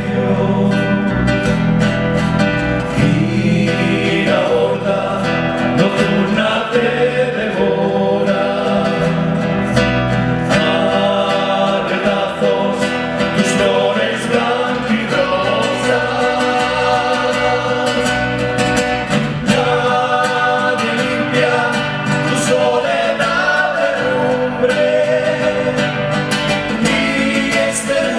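Several men singing a folk song together in harmony, accompanied by acoustic guitars and an electric bass.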